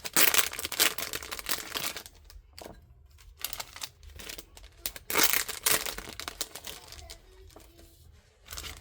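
Plastic packaging crinkling and rustling as it is handled, in irregular bursts: loudest in the first two seconds and again about five seconds in.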